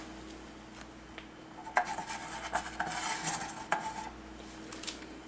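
Aluminium soda can being handled on a kitchen countertop: light metallic clinks and scraping, with a few sharp clicks.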